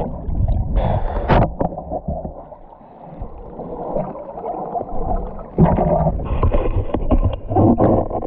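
Water heard through a submerged action camera: muffled gurgling and bubbling with a few sharp knocks as the camera frame hits the bottom. About two-thirds of the way through it breaks the surface and the sound turns suddenly brighter, with water splashing and wind.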